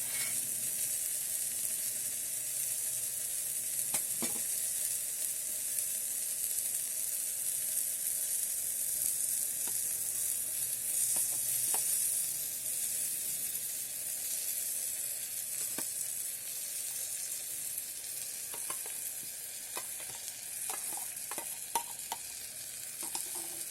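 Tomato-and-vegetable masala sizzling on the hot base of an electric kettle that has just been switched off, a steady hiss with a few short clicks and scrapes scattered through it as pasta is added and stirred.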